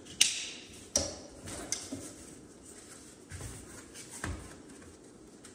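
Canoe thigh straps being handled: their buckles and webbing give three sharp clicks in the first two seconds, then two softer, duller knocks against the hull.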